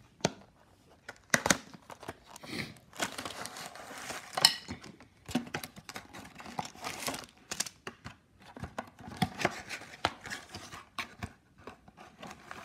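Unboxing: a cardboard box is handled and a model airliner in a plastic sleeve slides out, with crinkling and rustling of the plastic wrap and cardboard. It comes in irregular bursts, with a few sharp knocks, the loudest about a second and a half and four and a half seconds in.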